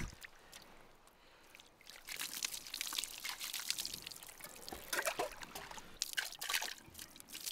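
Water poured from a container trickling and splashing over a wet dog and onto shoreline rocks, starting about two seconds in after a near-quiet moment, with scattered small splashes.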